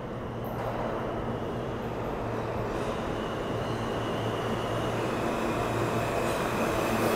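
R160 subway train running through the station, its rumble growing steadily louder, with a steady low hum and a high steady tone from its drive coming in about three seconds in.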